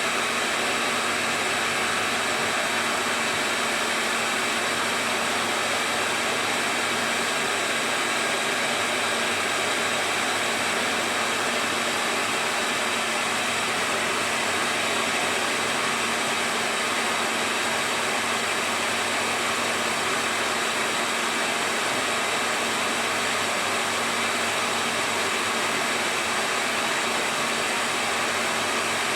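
Hair dryer running steadily: a constant rush of air with a faint, even motor hum.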